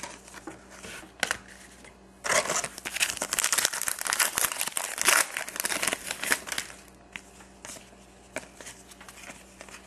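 Foil trading-card pack wrapper being torn open and crinkled, a dense crackling that lasts about four and a half seconds starting about two seconds in. Lighter rustles and clicks of cards being handled come before and after it.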